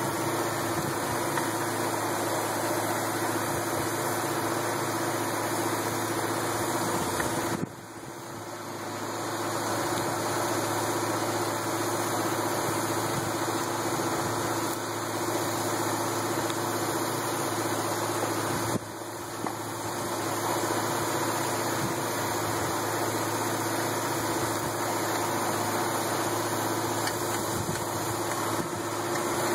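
Steady machine hum with a hiss from a low-pressure roof-cleaning spray rig, its air-powered pumps feeding gel to a spray wand. The sound drops sharply twice, about 8 and 19 seconds in, and builds back up each time.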